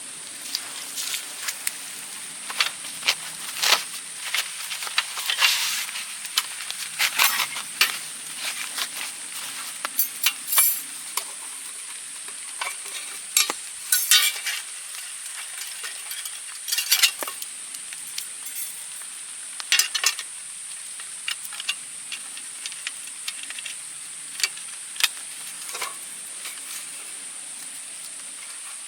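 Wood fire crackling and popping irregularly, its damp wood hissing, over a steady high-pitched hiss.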